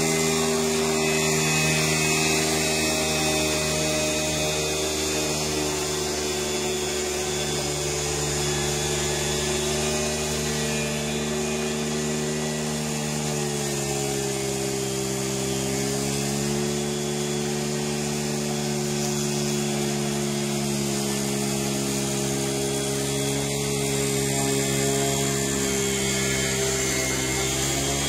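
Small petrol lawn mower engine on a remote-control tracked mower, running steadily with its blade turning. Its pitch sags a little around the middle and comes back up near the end.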